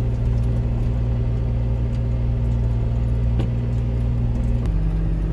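Farm machine's engine running steadily, heard from inside the cab as a low, even drone. Near the end the drone changes abruptly to a different pitch.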